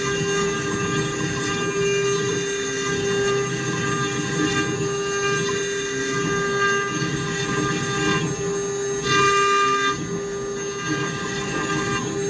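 CNC router spindle running with a steady high whine while its end mill cuts a wooden blank turning on the rotary axis, with rough cutting noise underneath. The cut gets louder for about a second, around nine seconds in.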